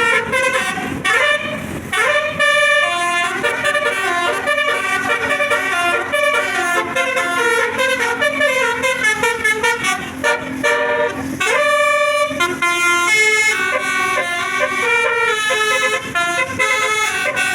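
Basuri telolet musical air horn on a bus, playing a melody of stepped horn tones, with rising siren-like swoops near the start and about two-thirds through.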